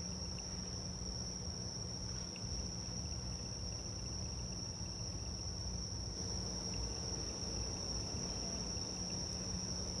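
Crickets chirring in a steady chorus, with a faint steady low hum underneath.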